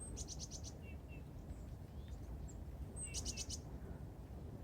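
Small birds calling: two short, rapid rattling series of high notes about three seconds apart, the first right at the start, with faint thin chirps in between, over a low steady background rumble.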